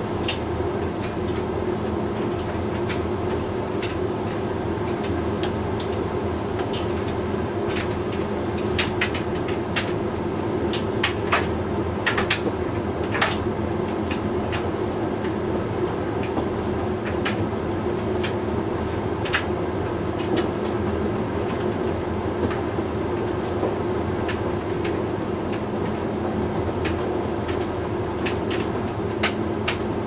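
Hoover Link X Care condenser tumble dryer running mid-way through its Lingerie cycle: a steady hum of motor, fan and turning drum, with light sharp clicks scattered through as the load tumbles, most of them around the middle.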